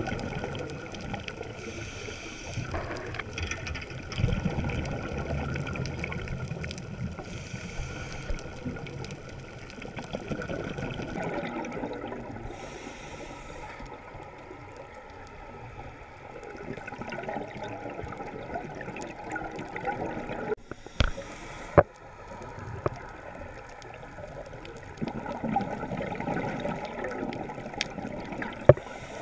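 Scuba regulator breathing heard underwater: exhaled bubbles gurgle in swells every five seconds or so, between shorter hissy inhalations. There are a few sharp clicks late on.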